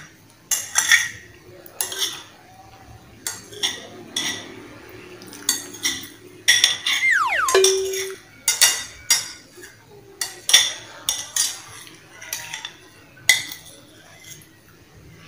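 Metal spoon clinking and scraping against a glass bowl of rice, with repeated sharp clinks. About seven seconds in there is a short falling tone that ends in a brief steady note.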